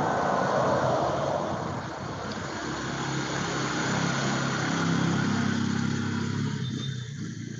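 Motorcycle traffic on the road, picked up through a video-call microphone: a steady engine hum with road noise, easing off toward the end.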